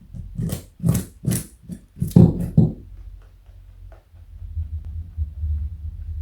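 Rabbit crunching a carrot: six crisp crunches at about two and a half a second, then softer, low, muffled chewing.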